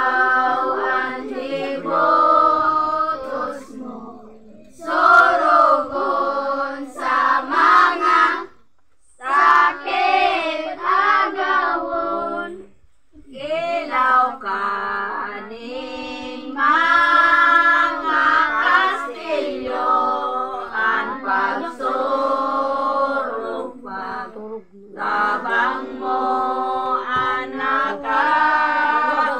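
A group of mixed voices, mostly girls, women and children, singing a devotional song together without instruments. The song comes in phrases separated by short pauses.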